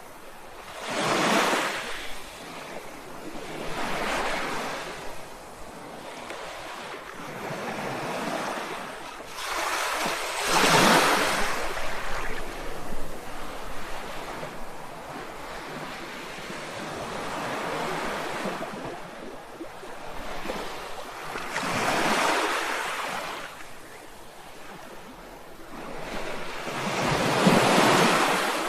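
Sea waves surging and breaking, each wash swelling up and fading away every few seconds over a steady roar of water, with the biggest breaks about a third of the way in and near the end.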